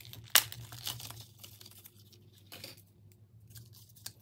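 Plastic blister packaging of a laptop RAM module being opened and handled. It crinkles, with a sharp snap about a third of a second in and lighter crackles and rustles after.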